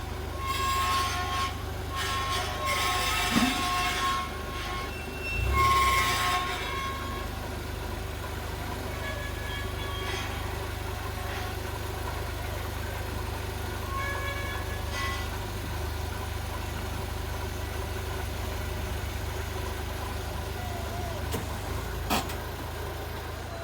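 Mazda Bongo camper backing up with its engine running in a steady low hum, over which come the abnormal noises heard in reverse: intermittent high-pitched squeaks and rattles, thickest in the first six or seven seconds and fainter later, and a single sharp click about 22 seconds in.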